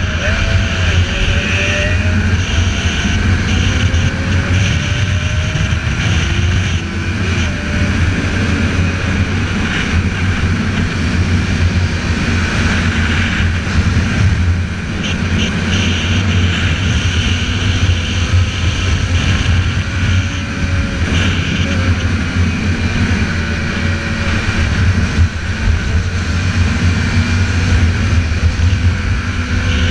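Onboard sound of a Honda sport bike riding at speed: a steady rush of wind over the microphone with the engine's note underneath, slowly rising and falling.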